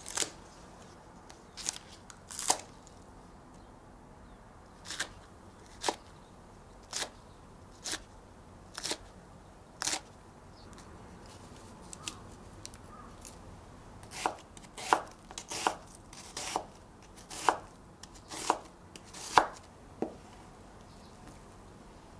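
Kitchen knife cutting green onion and then a half onion on a wooden cutting board. Each cut ends in a sharp knock of the blade on the board. The cuts come slowly at first, about one a second, then faster a little past halfway.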